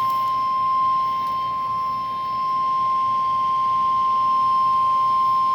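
NOAA Weather Radio warning alarm tone: a single steady high-pitched 1050 Hz tone held without a break, the signal that a weather warning is about to be read. A faint radio hiss lies under it.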